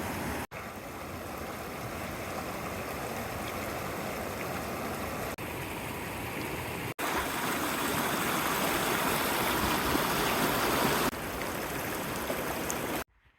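Mountain stream water rushing and splashing steadily. The level jumps at several abrupt cuts, loudest in the middle stretch, and the sound stops suddenly near the end.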